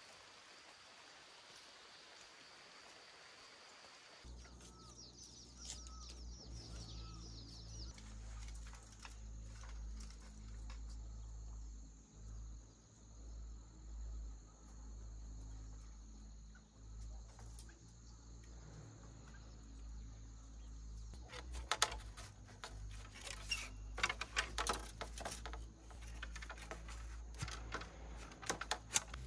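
An even hiss of light rain at first. Then, after a cut, a low rumble with a bird calling and insects trilling steadily. Over the last quarter come sharp knocks and rustles of bamboo poles being handled and pushed into the soil.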